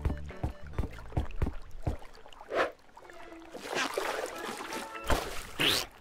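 Cartoon sound effects over light background music: a quick run of plucked notes, then several swishing whooshes of a fishing rod being whipped back and cast, with watery splash effects.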